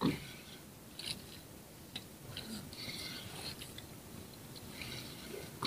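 Spinning reel being cranked against a hooked fish on a bent jigging rod: faint mechanical ticking and clicking from the reel, with a sharper click at the start and another near the end.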